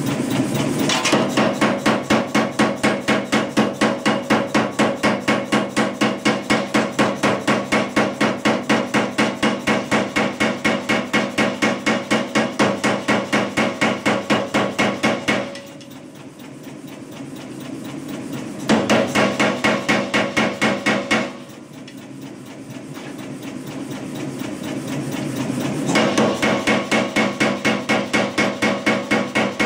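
Kuhn self-contained air power hammer striking rapidly, about three even blows a second, driving a round punch down into a block of red-hot steel to form a tea-light recess. The blows stop twice for a few seconds, leaving a steady lower hum, then resume.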